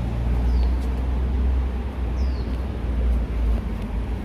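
Low rumble of street traffic that eases off about three and a half seconds in, with two short falling bird chirps, one about half a second in and one about two seconds in.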